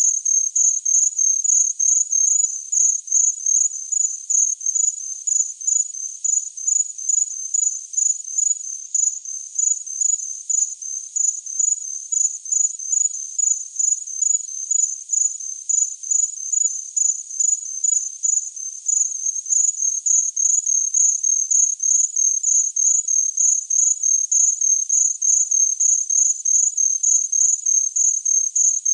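A cricket chirping steadily: high-pitched chirps repeating evenly about three times a second without a break.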